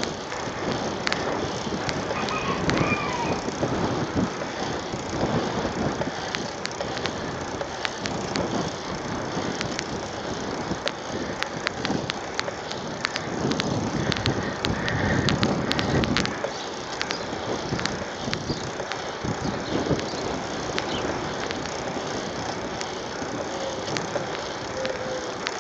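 Mountain bike rolling along an asphalt road: steady road and wind noise with frequent irregular sharp clicks and rattles from the bike.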